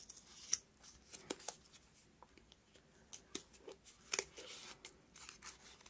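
Scissors snipping through thin paperboard, a few faint, irregular snips as the centre hole of a folded card circle is cut out.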